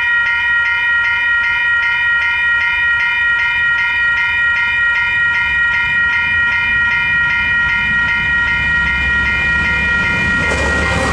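Western Cullen Hayes electronic level-crossing bells ringing, a steady multi-tone ding repeating about three times a second, then cutting off near the end. Under them the low rumble of an approaching freight train builds from about halfway through and swells into the noise of the train reaching the crossing.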